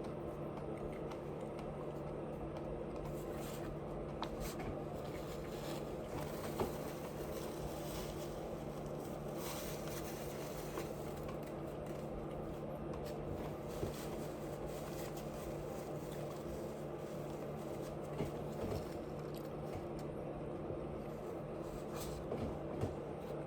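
A steady low background hum, with a few soft clicks and squishes from someone eating scattered through it.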